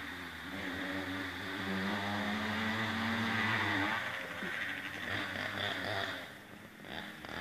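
80cc two-stroke dirt bike engine running around the track, its pitch rising and falling with the throttle. It is loudest about three to four seconds in, then fades away.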